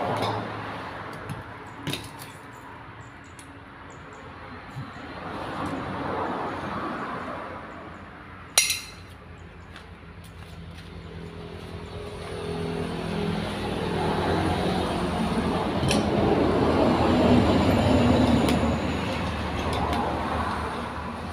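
Metal clicks and clanks of an air hose being coupled to a converted hydraulic bottle jack, the loudest a single sharp click about nine seconds in. From about twelve seconds a steady motor hum grows louder underneath.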